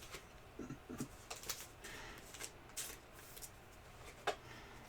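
Faint, scattered rustles and light clicks of trading cards being handled, with a sharper tick near the end.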